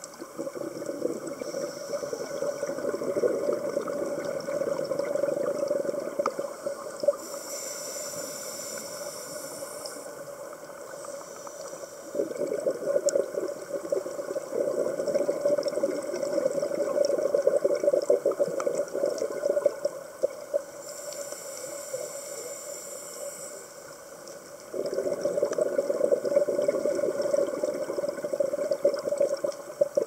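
Scuba diver breathing through a regulator underwater: three long exhales, each a rush of bubbling regulator exhaust, with two shorter hissing inhales between them.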